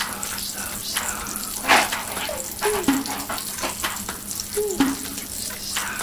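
Catfish frying in oil in a nonstick pan, sizzling and crackling steadily with a louder pop about two seconds in.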